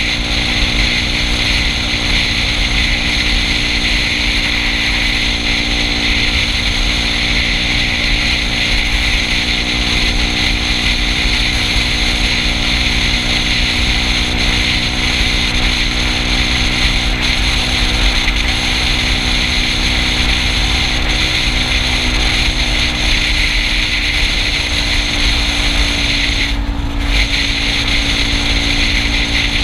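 Yamaha Cygnus 125cc scooter's single-cylinder engine running steadily at cruising speed, with a steady rush of wind and road noise from riding at speed. The high hiss briefly drops away near the end.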